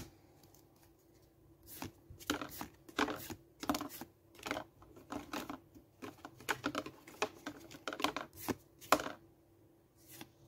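Pokémon trading cards being flipped through by hand, one card after another sliding off the stack with short papery swishes and flicks, a few a second, starting about two seconds in and stopping shortly before the end.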